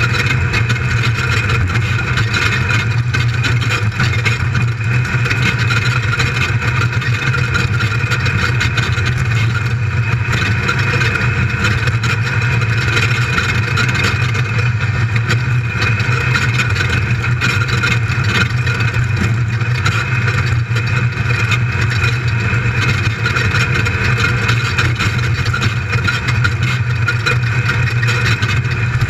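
Built LS1 V8 engine of an off-road race buggy running at speed, heard from inside the cockpit: a loud, steady drone with little change in pitch.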